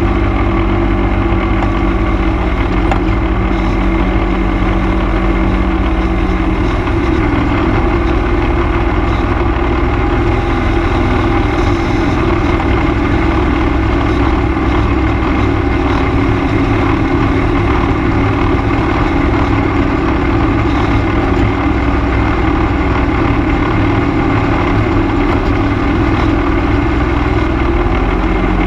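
ATV engine running steadily while the quad cruises along a paved road. Its pitch drops slightly about seven seconds in and comes back up near the end.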